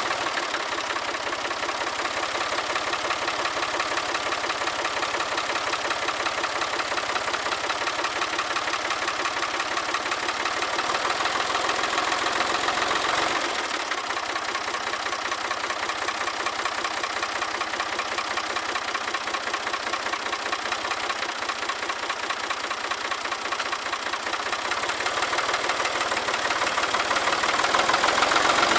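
1966 Ford 4000 tractor's three-cylinder diesel engine running with a steady clatter. Its note changes about halfway through, and it grows louder near the end as the tractor gets under way.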